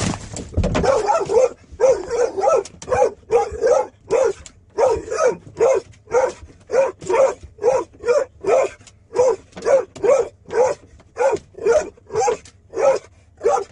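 Dog barking over and over in a steady run, about two short barks a second; it serves as the truck's joke 'alarm system'.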